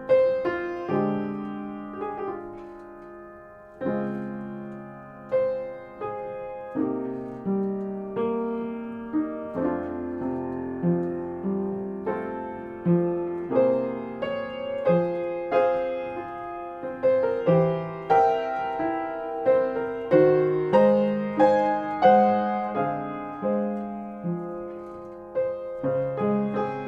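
Solo jazz piano playing a slow ballad, with full chords struck every second or so and ringing out between them.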